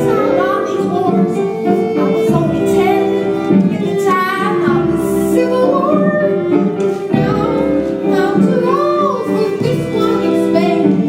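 Music with high voices singing, held notes sliding and wavering between pitches over sustained tones.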